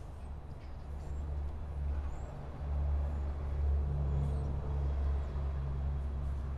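Steady low outdoor rumble with a faint low hum, getting louder about two and a half seconds in.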